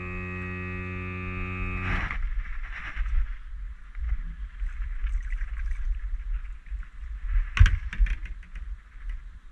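A steady buzzing tone for about the first two seconds, then splashing as a hooked black bream is reeled to the side of a small boat, with a run of sharp clicks and knocks about eight seconds in as it is lifted out of the water.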